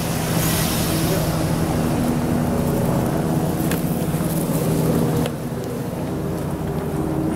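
A car passing slowly at close range, its engine running with a steady low hum; the sound eases a little about five seconds in.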